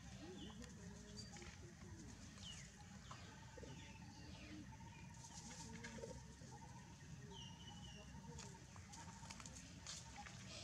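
Faint outdoor background: a low steady rumble with scattered short, high chirps and a few brief gliding calls.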